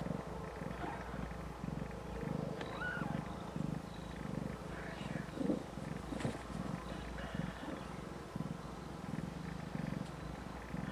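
Snowshoe Siamese mother cat purring in a low, pulsing rhythm while lying with her newborn kittens. A brief high squeak comes nearly three seconds in, and a couple of soft knocks near the middle.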